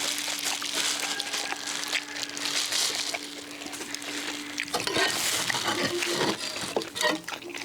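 Close-up eating sounds of people eating grilled duck: chewing, with many small clicks and rustles from handling the food, over a steady low hum that stops about two-thirds of the way through.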